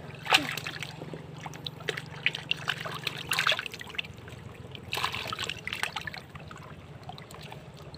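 Hands sloshing and splashing through shallow muddy water, with irregular small splashes, drips and trickles and a few sharper wet clicks, in two denser bursts around the middle.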